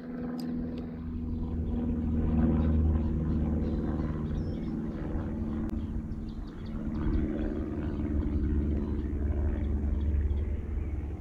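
A motor running steadily with a low rumble. It swells a little, eases off about six seconds in, then swells again.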